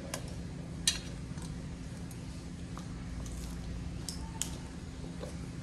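A few light metallic clinks as a steel plate is handled, about a second in and again at about four and a half seconds, over a steady low hum.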